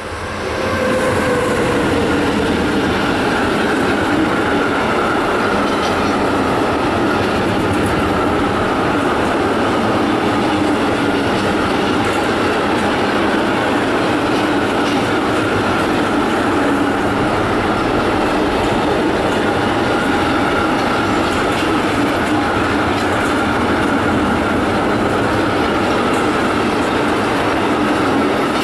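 Intermodal freight train passing close by at speed: a steady, loud rumble of container wagons' wheels running over the rails. Near the start, a falling whine as the two leading electric locomotives, a Siemens Vectron and a PKP class 3E/1, go past.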